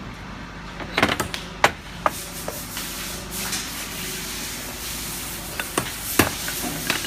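Steel forming-head die parts knocking and clinking as they are fitted together by hand. There is a cluster of sharp knocks about a second in, a few single ones after it, and another group near the end that holds the loudest knock. A steady low hum runs underneath.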